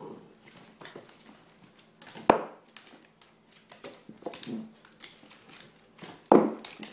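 Scuffling and rustling as a corgi puppy tussles with a rope toy on a hardwood floor, with two sharp knocks, about two seconds in and near the end.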